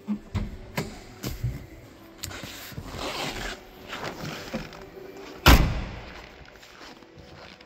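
A 1968 Ford Capri's steel door shut with one heavy thump about five and a half seconds in, after a few light knocks and clicks from hands working inside the cabin.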